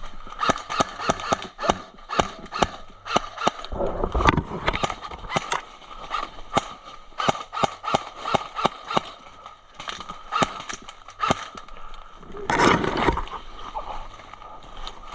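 Footsteps crunching at a walking pace through brush and leaf litter, with two longer stretches of rustling, about four seconds in and near the end.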